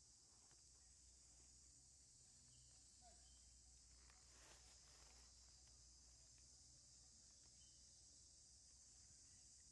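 Near silence: a faint steady high hiss with a low hum underneath, and a faint brief sound about halfway through.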